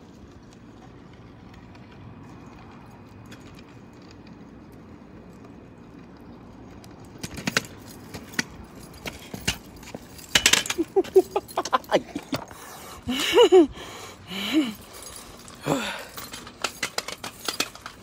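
Quiet background for several seconds, then clicks and rattles of keys on a belt clip jangling and of a phone being handled and picked up, mixed with a few short wordless voice sounds.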